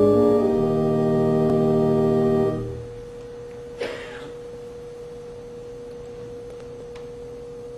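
Organ playing held chords that stop about two and a half seconds in, leaving one steady tone sounding on. A short scratchy noise comes about a second after the chords stop.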